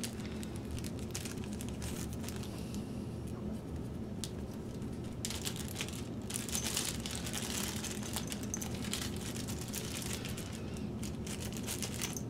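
Small clear plastic parts bag crinkling and crackling as it is handled, sparse at first and dense from about five seconds in. A steady low hum runs underneath.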